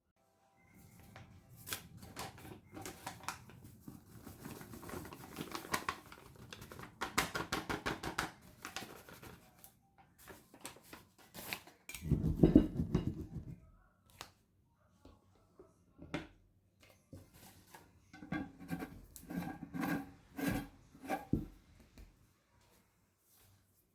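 Small handling sounds while organizing a kitchen: runs of quick sharp clicks and rustles, with one louder knock about halfway through.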